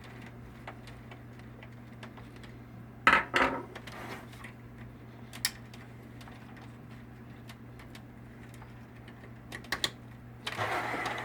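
Scattered clicks and knocks of a screwdriver and plastic printer parts being handled during reassembly, with two loud knocks about three seconds in and a rustling scrape near the end, over a steady low hum.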